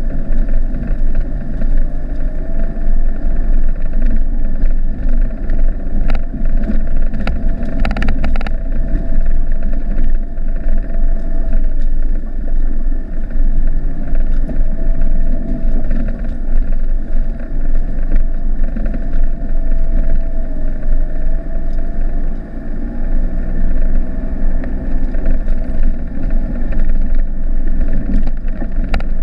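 In-cab sound of a 1995 Mitsubishi Delica 2.8 turbo-diesel driving along a dirt track: the steady drone of the engine with a faint whine that wavers slightly in pitch. A brief cluster of clicks about six to eight seconds in.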